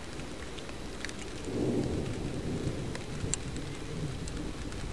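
Distant thunder rumbling low, swelling about a second and a half in and fading out, over a steady hiss of rain and wind. Scattered light ticks are heard throughout.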